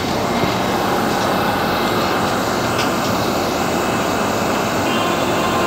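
Inside an Athens Metro carriage, the train running and slowing into a station: a steady rumble and rush of wheels and motors. Faint whining tones run through it, and a few higher thin tones join near the end.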